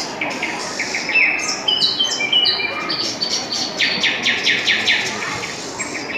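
Birdsong sound effect: several small birds chirping and whistling, with a fast run of rapidly repeated notes about four seconds in.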